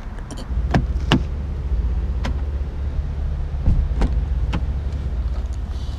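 About six sharp clicks and knocks from a parked car being opened and handled, over a steady low rumble that starts about half a second in.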